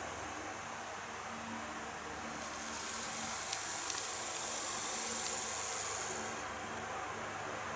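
GreenMax N-scale Keikyu 2100 series model train running along the track, a steady rolling noise with a high whir that swells about two and a half seconds in and fades near the end. Two quick clicks come about three and a half seconds in.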